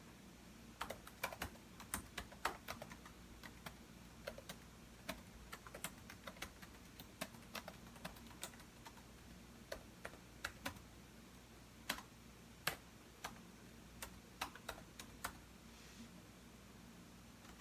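Computer keyboard typing in irregular runs of keystrokes with short pauses between them, stopping near the end.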